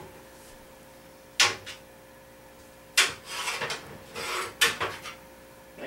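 Metal baking pans knocking and scraping in a kitchen drawer as they are pried out with a spoon: a few sharp knocks with scraping between them.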